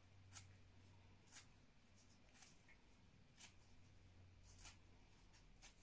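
Near silence with faint, short scratchy rustles about once a second: a Petit Basset Griffon Vendeen's wiry top coat being hand-stripped, pulled out with the fingers.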